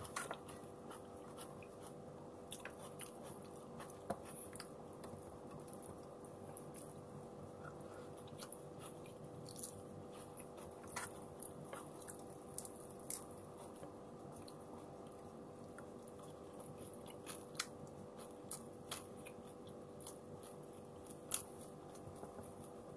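Close-up chewing and mouth sounds of a person eating rice and fried milkfish with the fingers: scattered soft clicks and smacks. A steady low hum runs underneath.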